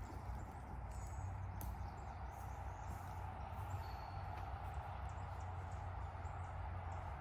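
Outdoor background: a steady low rumble and hiss, with a few faint, short high chirps from birds.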